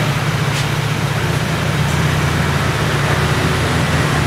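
Steady low mechanical rumble with a constant hum underneath and a hiss above it.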